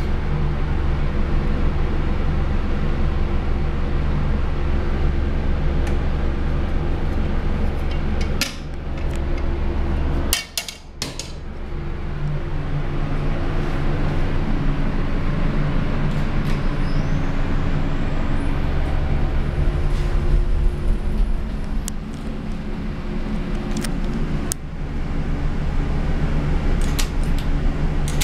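Steady low machine hum inside a Midstate hydraulic elevator car, dipping briefly about ten seconds in, with scattered clicks and knocks.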